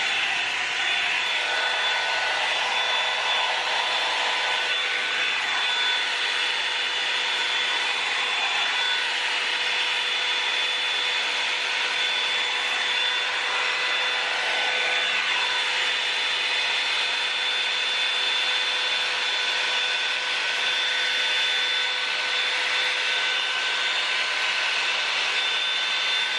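Revlon hot-air dryer brush running steadily on damp hair: the rush of its blown air with a steady motor whine of several pitches.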